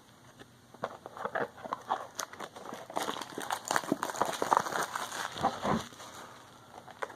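A small cardboard blind box and its plastic wrapping being handled and opened by hand: a run of quick rustles, crinkles and clicks, busiest in the middle and easing off near the end.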